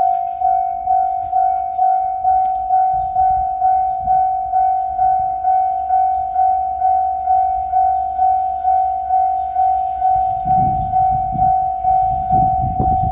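Japanese railway level-crossing alarm ringing its steady 'kan-kan' at about two strikes a second. From about ten seconds in, the low rumble of an approaching diesel railcar rises under it.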